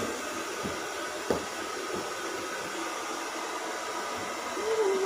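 Steady machine whir, with a single sharp click about a second in and a brief pitched sound just before the end.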